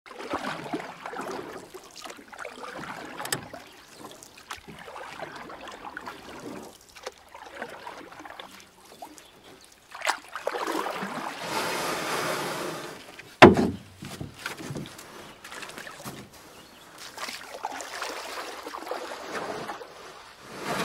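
Harbour water lapping and sloshing irregularly against the quay and a moored fishing boat, with one loud thump about thirteen and a half seconds in.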